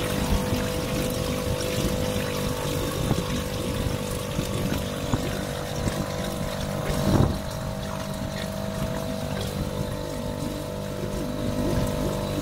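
Tohatsu 3.5 outboard motor running steadily at mid-to-high revs during break-in, with water rushing and splashing along the catamaran's hulls. A single thump about seven seconds in.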